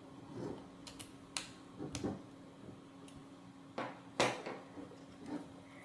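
Handling noise from the plastic robot chassis and a screwdriver on a tabletop: about five light clicks and taps, the loudest a little after four seconds in.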